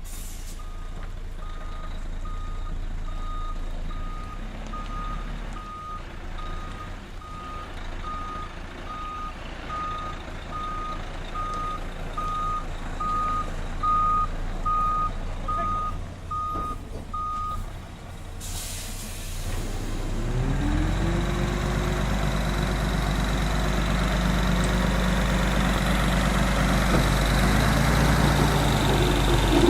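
Reversing alarm on a small diesel site machine beeping at an even pace over the engine's low running hum, stopping about 17 seconds in. A few seconds later the diesel engine revs up and runs louder and steady, as under load.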